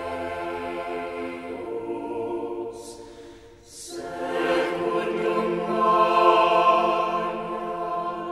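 Choir singing slow, sustained chords. The first chord fades away about three and a half seconds in, with two short hissing consonants. Then a new chord swells in and builds to its loudest a couple of seconds later.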